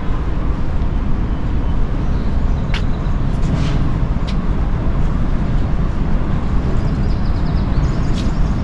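Steady low rumbling outdoor background noise, with a few short sharp clicks and a faint rapid ticking near the end.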